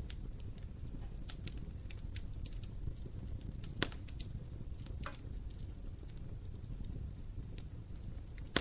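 Wood fire burning in a fireplace: a steady low rumble of the flames with irregular crackles and small pops of the burning logs, one sharper pop about four seconds in and another near the end.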